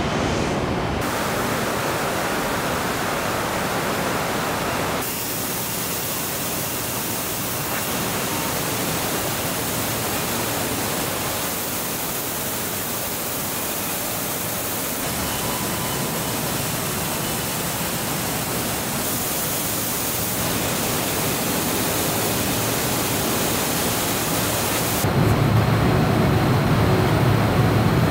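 Steady rushing, hiss-like factory noise of car-plant machinery and moving air. It switches abruptly to a slightly different mix several times, and a deeper rumble joins for the last few seconds.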